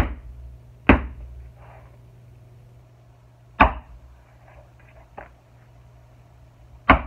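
Mallet striking a leather notch punch through leather into a cutting board: five sharp knocks at uneven intervals, the fourth lighter than the rest.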